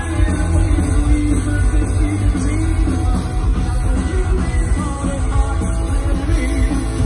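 Punk rock band playing live: electric guitars, bass and drums at full volume, with a man singing over them through the PA.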